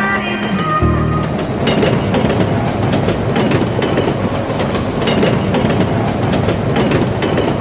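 Sydney Trains double-deck electric train running past along the platform: a steady rumble and rush, with irregular clacks of the wheels over rail joints. Music ends about a second in.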